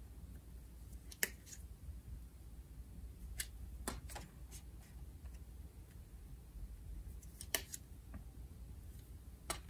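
Photo cards being handled and laid down on a cardboard box floor: scattered small sharp clicks and taps, about eight in all, the loudest about a second in and again near seven and a half seconds.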